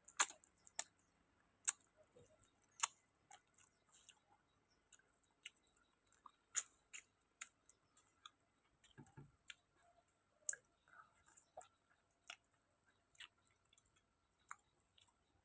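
Faint close-up eating sounds of chewing grilled field rat: scattered sharp, irregular clicks and smacks from the mouth, with a couple of soft low thuds.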